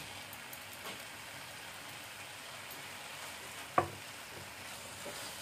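Grated carrots with ghee and sugar sizzling steadily in a pan over a gas flame as powdered milk is tipped in and stirred with a wooden spatula. A single sharp knock a little under four seconds in is the loudest sound.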